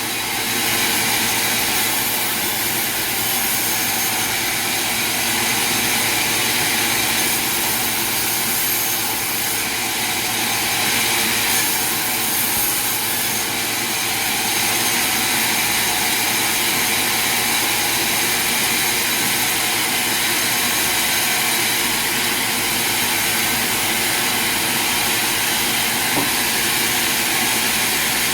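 Sawmill machinery running: a steady, loud mechanical hiss and hum that holds level throughout.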